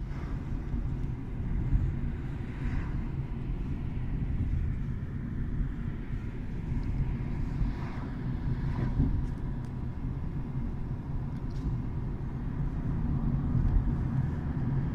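Road noise inside a moving taxi: a steady low rumble of engine and tyres, with another car passing close by about eight seconds in.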